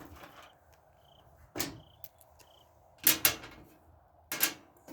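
Three sharp knocks and clunks, the second the loudest, from handling the loosened top panel of a Samsung front-load washer.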